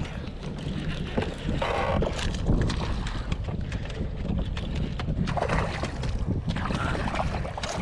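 Wind buffeting the microphone on a fishing boat, a steady low rumble, with a few brief splashing or knocking sounds from handling on the boat.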